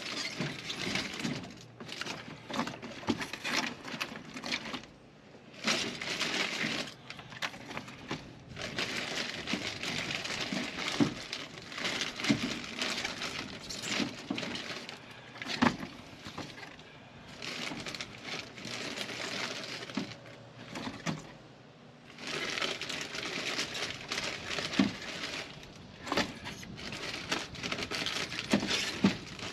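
Plastic shrink-wrap crinkling as water bottles are pulled one at a time from a case, with light knocks as the plastic bottles are set upright in a soft-sided cooler bag.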